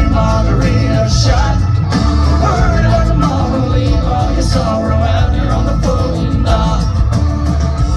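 Live country concert music heard through a crowd recording: loud full band with heavy bass and drums, with a sung or lead melody line over it.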